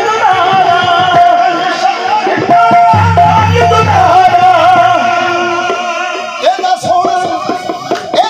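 Qawwali music: a voice sings over held, sustained tones and percussion. The low end drops out for about a second just past the middle, and sharp percussive strikes stand out near the end.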